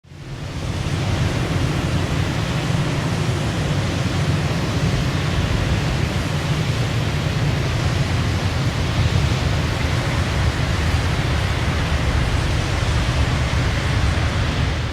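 A big waterfall: a steady, heavy rush of falling water with a strong deep low end, fading in over the first second.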